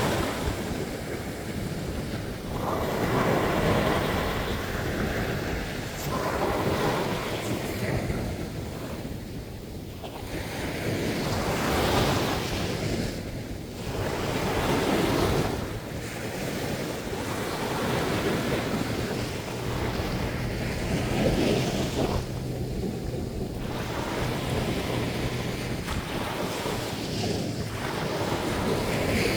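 Ocean surf breaking on a beach, the wash swelling and falling back every few seconds.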